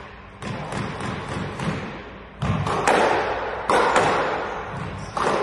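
Squash rally: a run of sharp, irregular knocks as the ball is struck by the rackets and hits the court walls.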